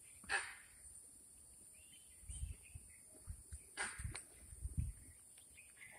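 A monkey's alarm call against a tiger or leopard: two short, harsh grunting barks, one just after the start and one a little past the middle. Low thuds come between and around the second bark.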